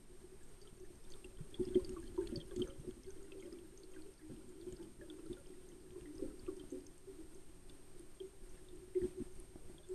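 Underwater bubbling and gurgling heard through a submerged camera, with a run of louder crackles about two seconds in and again near the end, over a faint steady high whine.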